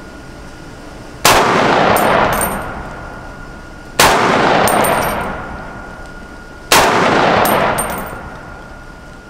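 Springfield Armory Saint Victor .308 semi-automatic rifle firing three single shots about two and a half seconds apart, each a sharp crack with a long echoing tail and a few light high clinks after it.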